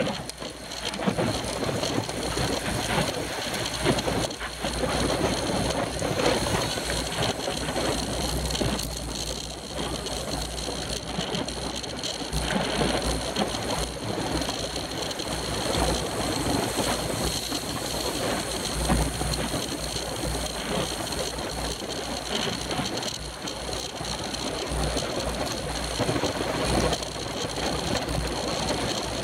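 Road bicycles riding at speed in a racing pack, heard from a camera mounted on one of the bikes: steady wind rushing and buffeting over the microphone, with the rolling noise of tyres and bikes underneath.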